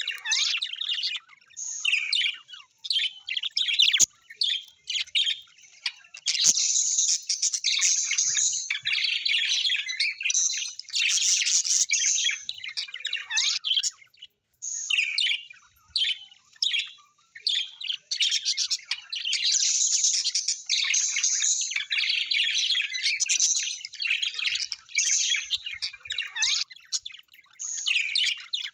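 Many birds chirping and chattering in dense, overlapping calls, with a short pause about halfway. Two sharp clicks sound in the first quarter.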